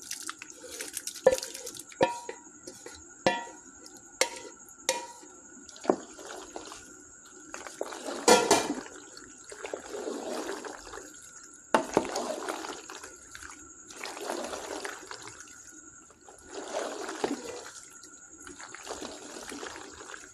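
A spoon stirring penne in thick, cheesy white sauce in a pot. A run of sharp knocks of the spoon against the pot comes in the first few seconds, with the loudest knock about eight seconds in. Then come slow, wet squelching strokes every couple of seconds.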